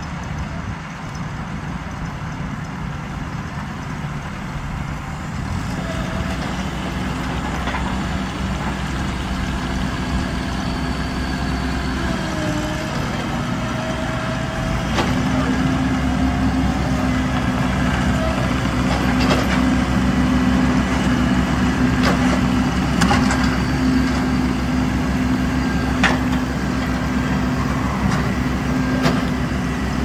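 Heavy vehicle engine running steadily, growing louder about halfway through, with scattered sharp knocks over it.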